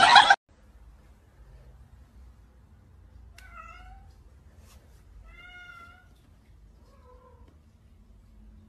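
A kitten mewing three times, short calls about a second apart, the last one lower. A loud burst of voices and laughter cuts off in the first half second.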